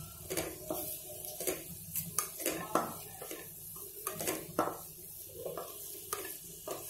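Wooden spatula scraping and knocking irregularly against a kadhai while chopped onions and bay leaves are stirred and sautéed in oil, with a faint sizzle.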